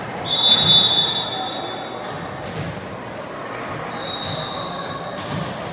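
Referee's whistle blown twice in a gym: a long, loud blast just after the start and a shorter, fainter one about four seconds in. Several dull thuds of a ball bounced on the hardwood floor come between them.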